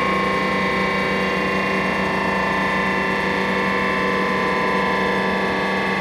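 Yamaha Tenere 700's parallel-twin engine running through a Dominator aftermarket round muffler on a dyno, rear wheel spinning on the roller. The engine note is held steady, with almost no change in pitch.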